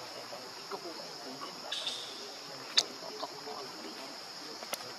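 Steady high-pitched drone of forest insects, with a short chirp just before two seconds in and a sharp click about three seconds in, another near the end.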